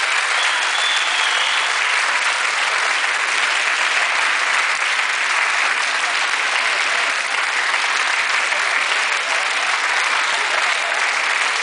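Steady, sustained applause from a crowd of dancers, clapping in thanks to the musicians.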